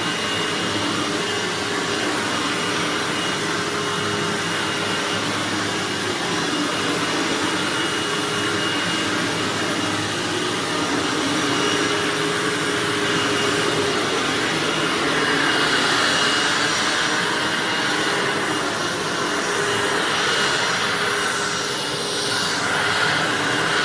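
Hoover WindTunnel bagged self-propelled upright vacuum cleaner running steadily on carpet, a high whine over its motor noise. In the second half the tone sweeps up and down.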